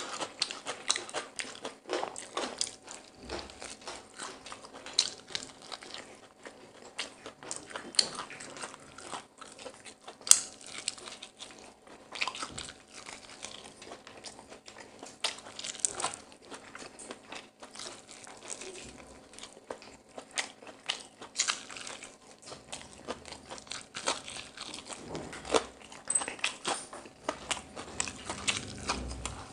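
Close-up eating sounds: hands tearing apart crumb-coated whole chicken from a chicken biryani, and open-mouthed chewing, in irregular wet clicks and rustles. One sharp click about ten seconds in is the loudest.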